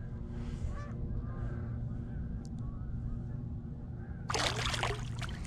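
Water splashing and sloshing against a kayak's side starting about four seconds in, as a released northern pike kicks free at the surface, over a steady low hum. A few faint honks, like distant geese, sound in the first second or so.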